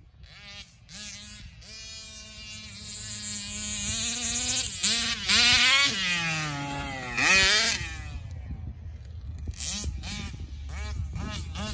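Large-scale RC car's RCMax 50GT two-stroke gas engine revving hard as the car drives across the grass, its high buzz swooping up and down in pitch. It grows from faint to loudest about halfway through as the car passes close, peaks again briefly, then fades.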